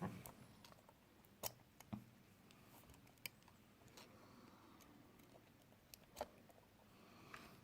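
Near silence with a handful of faint, sharp clicks and taps from small smartphone parts being handled and fitted.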